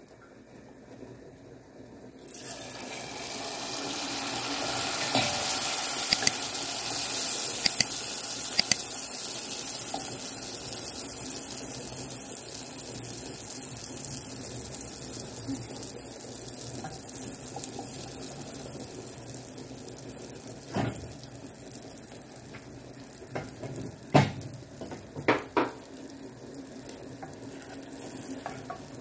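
Picarón dough dropped into a pot of hot oil about two seconds in, starting a loud, steady sizzle of deep-frying. A few sharp knocks come near the end.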